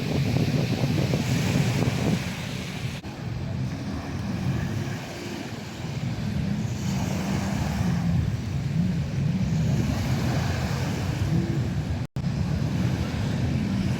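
Wind buffeting the microphone in heavy gusts, with a split-second dropout near the end.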